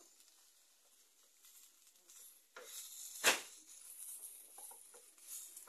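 Chopped onion and garlic sizzling in a small enamel frying pan over a wood fire while a wooden spoon stirs them, faint at first and louder from about two and a half seconds in. A single sharp knock a little after three seconds in, the loudest sound here.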